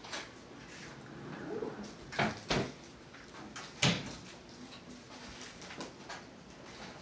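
A few short, sharp clicks and knocks over faint room noise, two close together about two and two and a half seconds in and a louder one about four seconds in.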